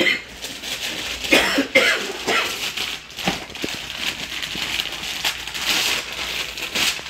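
Christmas wrapping paper being ripped and crinkled by hand as a present is unwrapped, in a run of irregular tearing and rustling strokes.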